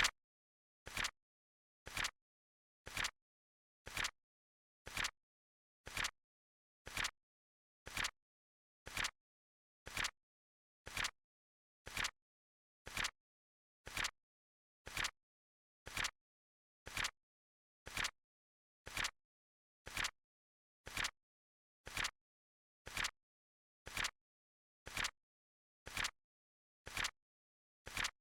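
Flip-clock timer sound effect: a short, sharp flip click once every second, evenly spaced, with dead silence between clicks.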